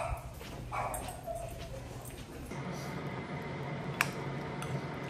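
A dog behind a closed apartment door gives a few short, high whines that slide down in pitch, excited because it takes the passing footsteps for its owner coming home. About halfway through, this gives way to a steady low hum, with a single clink of a spoon against a ceramic bowl near the end.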